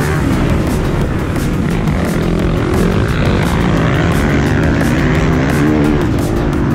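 Motocross dirt bike engine at close range, its revs rising and falling as the bike slows into a corner and pulls away again.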